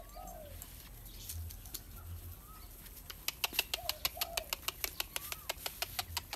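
Bangkaew puppies giving faint, short whimpers. From about halfway through, a fast run of sharp clicks, roughly six a second.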